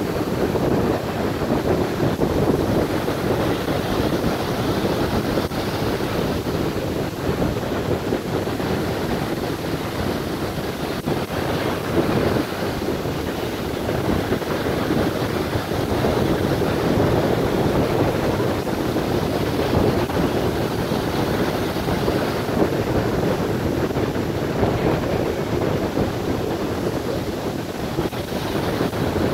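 Black Sea surf breaking and washing up a sandy beach: a steady rush of water and foam that swells and eases every few seconds as each wave comes in.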